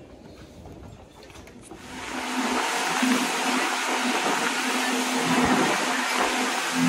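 Speedboat with 250 hp outboard motors running at speed: a steady engine hum under a loud rushing of wind and water. It starts about two seconds in, after a quieter stretch.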